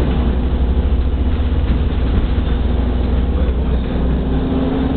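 Ansaldo-Mauri trolleybus under way, heard from inside the passenger cabin: a steady low rumble of the ride with a thin whine that rises slightly near the end.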